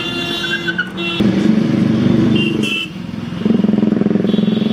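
A motor vehicle engine running close by with a fast, even pulse. It cuts in about a second in, drops away briefly just before the three-second mark, then returns louder, with a couple of short high tones over it.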